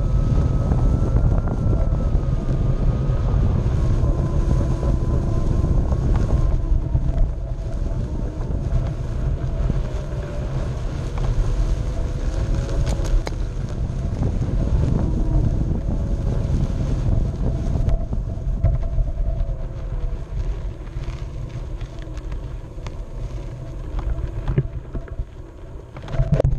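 Onewheel electric board riding over grass: the hub motor whines, its pitch rising and falling with speed, under heavy wind rumble on a microphone mounted on the board. A short louder burst comes near the end.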